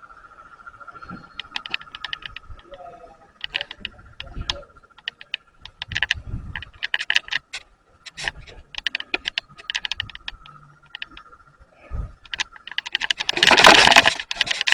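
Model train running on garden railway track: clusters of sharp rapid clicks from the wheels over the rails, with a steady high motor whine. Near the end, a loud brief scuffing rush.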